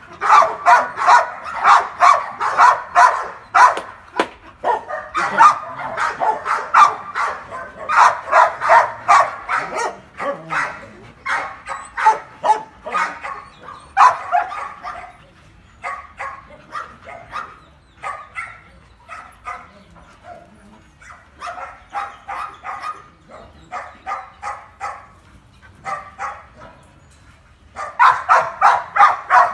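Dog barking in a fast, steady run of about four barks a second during rough play, loud through the first half, fainter and more broken in the middle, then loud again near the end.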